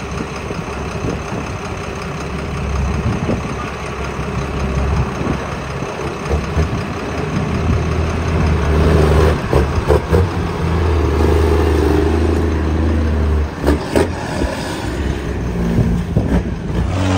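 Heavy diesel truck engine running, its pitch stepping up and down, with a few sharp knocks about ten and fourteen seconds in.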